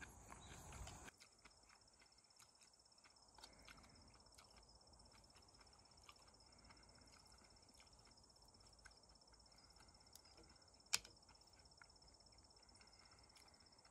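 Near silence with a faint, steady high-pitched insect chorus. A louder rustling noise cuts off about a second in, light scattered clicks follow, and there is one sharp click about eleven seconds in.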